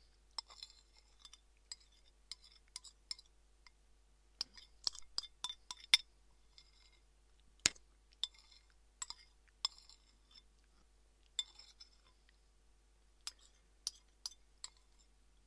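Spoon clinking against a soup bowl as the last of the soup is scooped up: a string of irregular sharp clinks, the loudest about six seconds in.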